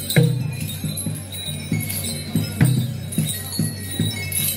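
A barrel drum struck in a steady beat of deep strokes, about two or three a second, with bright metallic jingling over it.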